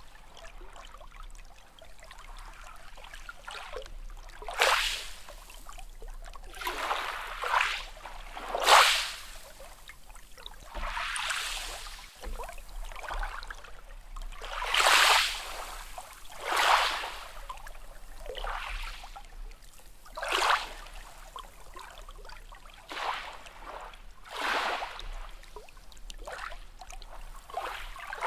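Small sea waves lapping and splashing, a short wash of water every second or two, some louder than others.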